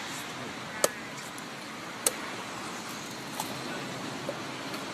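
A knife chopping fruit on a cutting board: two sharp knocks about a second apart, then a fainter one, over a steady hiss of outdoor background noise.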